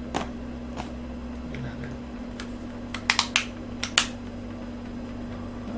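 Small sharp clicks and taps from handling an action camera and its fittings: a few single clicks, a quick cluster about three seconds in, and the loudest click about a second later.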